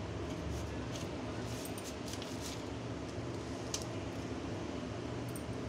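Light rustling and a few small clicks of hands working soft rice-flour dough on newspaper, with one sharper click a little before 4 s, over a steady low hum.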